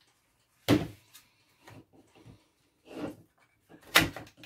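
Plastic RC car chassis and parts being handled and fitted on a desk: a handful of knocks and clunks, the loudest about a second in and near the end.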